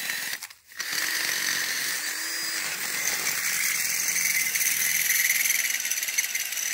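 Cordless drill running as it drives a screw into a fitting on a galvanized steel pipe frame. A short burst, a brief stop about half a second in, then one long steady run.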